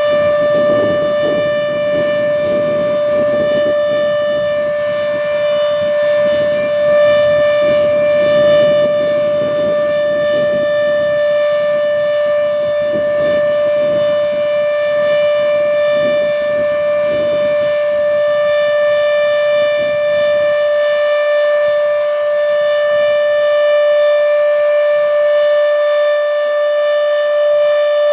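H.O.R. Siro-Drone mechanical warning siren sounding the full alert signal: one loud, steady tone that holds its pitch without rising or falling. A low rumbling noise underneath fades out about twenty seconds in.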